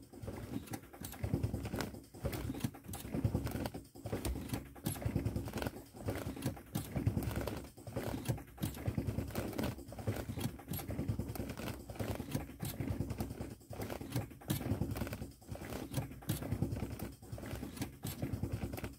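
Land Rover Discovery ABS modulator solenoids clicking rapidly as a homemade controller cycles them, in bursts broken by short pauses every second or two, while the brake pedal is pumped to bleed air and old fluid out of the ABS unit, its pump motor disconnected.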